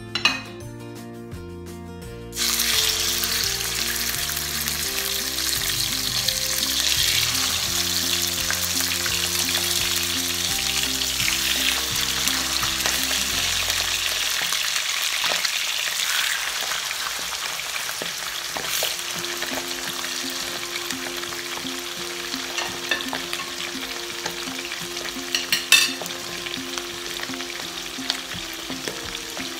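Chicken thighs sizzling in hot oil in a frying pan: the sizzle starts suddenly about two seconds in as the meat goes into the pan, then runs on steadily, easing a little toward the end. A few sharp clicks near the end.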